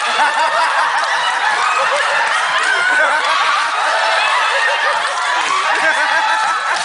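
An audience laughing, many voices overlapping steadily.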